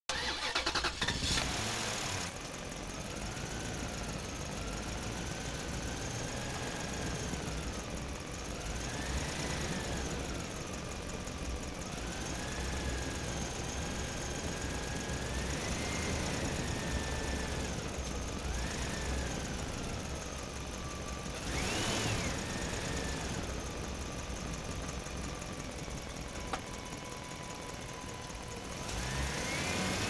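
Small electric motor of a remote-control toy monster truck whining, its pitch rising and falling again and again as it speeds up and slows down.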